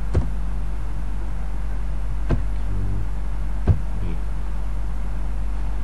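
Steady low hum with three sharp, separate clicks spread over the first four seconds: keystrokes on a computer keyboard.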